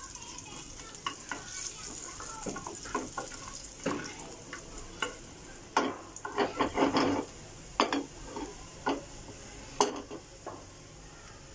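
Garlic, cumin, mustard seeds and curry leaves sizzling in hot oil in a small frying pan while a spoon stirs and scrapes the pan, with sharp clicks, a quick run of them around the middle. This is a tadka (tempering) being fried until the garlic turns reddish.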